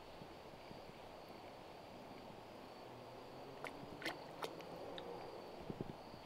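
Quiet creek ambience with a faint steady high-pitched hum, and a few small sharp clicks and light water sounds as a fish is let go by hand in shallow water, a little past halfway.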